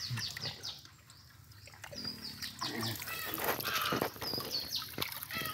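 Birds calling with repeated short, high, falling chirps, along with a few sharp knocks.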